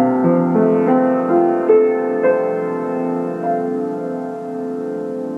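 Kawai grand piano played slowly: a short phrase of single notes over a held bass in the first few seconds, then the final chord left ringing and fading away as the piece ends.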